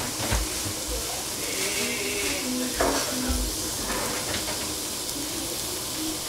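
Sliced pork frying in a hot nonstick pan: a steady sizzle.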